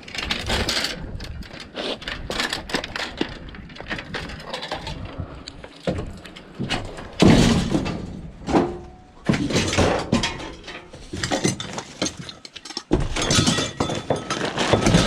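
Scrap metal and junk being shifted and restacked in the back of a van: a run of irregular clanks, knocks and clatters, with the loudest crash about seven seconds in.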